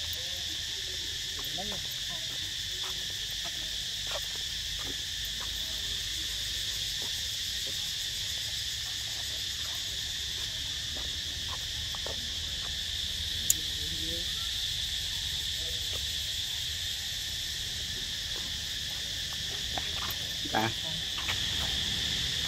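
Steady, high-pitched chorus of forest insects droning without a break. A single sharp click comes about halfway through, and a brief knock comes near the end.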